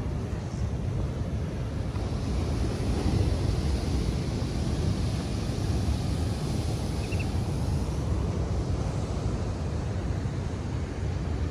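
Atlantic surf breaking and washing up a sandy beach, a steady hiss that swells about three seconds in, with wind buffeting the microphone in a low rumble.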